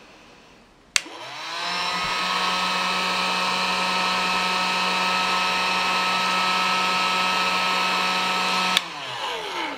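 Electric heat gun switched on with a click about a second in, its fan motor spinning up to a steady whine over the rush of hot air as it blows on the wiring. It is switched off with a click near the end and its fan winds down.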